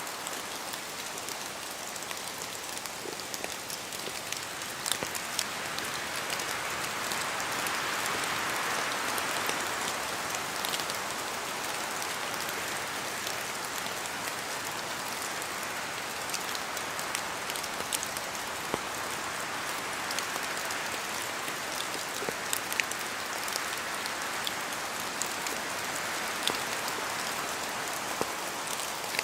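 Steady rain in a forest, a continuous hiss dotted with scattered sharp taps of heavier drops falling from the trees. The hiss swells twice, a few seconds in and again later on, as wind moves through the trees.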